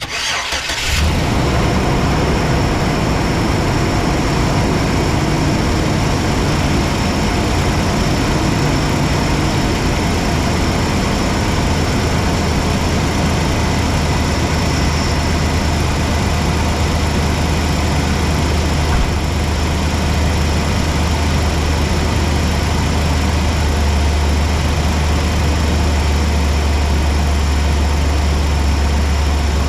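A 2010 Chevy Express 1500's 4.3 L V6 idling steadily, with a strong low hum.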